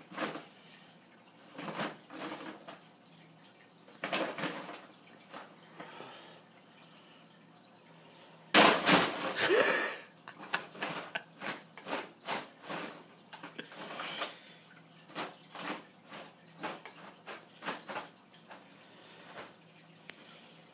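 Brown paper bag crinkling and rustling in irregular bursts as a serval noses and paws into it, the longest and loudest rustling about halfway through.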